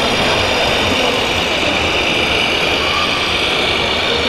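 Engine sound of an RC Grand Hauler semi-truck running steadily at a low idle-like pace, a simulated diesel played by the model's sound unit.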